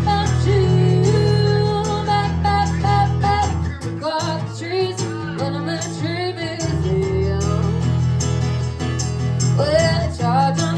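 Band playing a song with singing.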